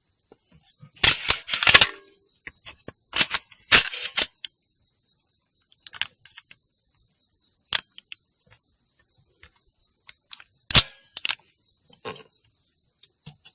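Sharp metallic clacks and clicks of a 300 Blackout rifle's action being worked, in several bursts, most likely while misfired reloads are cleared. A steady high insect chorus runs underneath.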